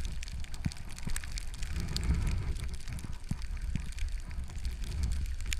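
Skis sliding over packed snow, a steady hissing scrape with scattered small ticks, over a low rumble of wind on the microphone.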